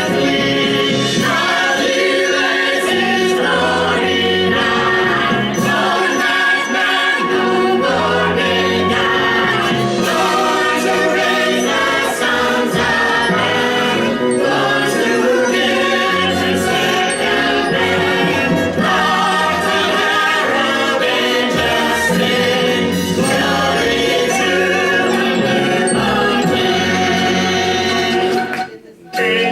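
Choral music: a choir singing with instrumental accompaniment, breaking off briefly just before the end and then going on.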